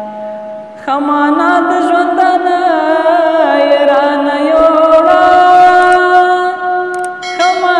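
A man singing Pashto verse in tarannum style, a long melodic phrase of held notes that waver and slide. It begins about a second in, with a short break near the end before the next phrase.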